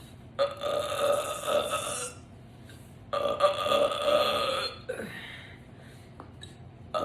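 A woman burping deliberately: two long, loud burps about a second apart, each lasting nearly two seconds, with the start of a third right at the end.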